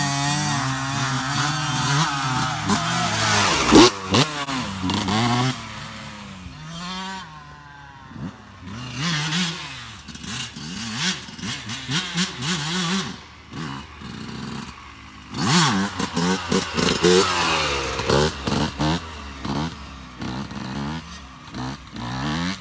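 Yamaha YZ125 single-cylinder two-stroke dirt bike engine revving up and dropping back again and again as it is ridden through wheelies, loudest near the start and again about two-thirds in. A sharp knock cuts in about four seconds in.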